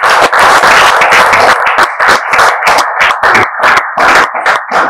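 Congregation applauding: a dense wash of clapping that thins after about a second and a half into separate claps, which die away near the end.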